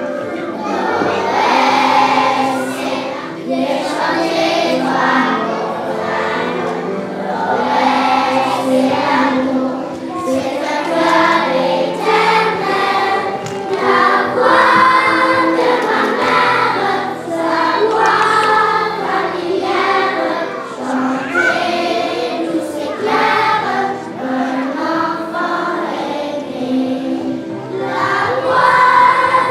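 A children's choir singing a song with instrumental accompaniment.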